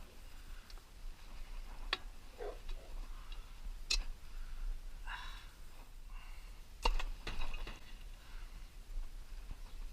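Metal parts and hand tools clicking and knocking during hand disassembly of a small Briggs & Stratton engine: three sharp clicks, at about two, four and seven seconds in, with faint scraping and handling in between.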